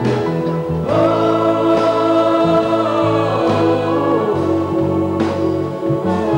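A woman singing solo into a microphone, backed by a children's choir and a live band. She holds a long note starting about a second in.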